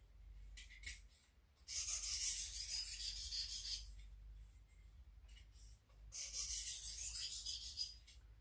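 Boning knife blade stroked back and forth on a hand-held 600-grit sharpening stone, alternating sides to polish the edge after the burr is removed. It comes as a brief scrape about a second in, then two runs of quick rasping strokes of about two seconds each, with a pause between.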